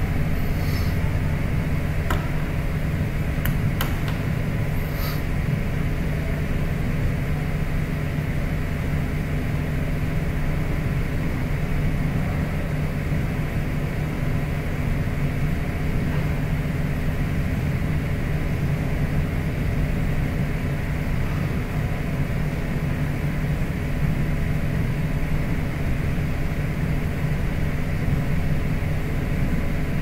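Steady mechanical hum with hiss, even in level throughout, with a few faint clicks in the first few seconds.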